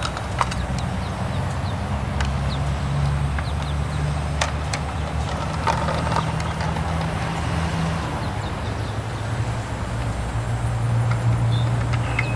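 Garbage truck diesel engine running with a low drone that rises in pitch for several seconds, settles, then rises again near the end, with a few sharp clicks over it.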